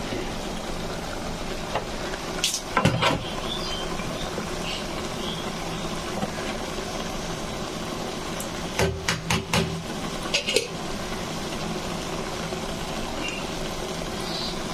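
Masala-coated taro sautéing in an aluminium pot on a stove: a steady hiss of cooking. A couple of sharp metallic clinks come about two and a half to three seconds in, and a quick run of them comes around nine to ten and a half seconds.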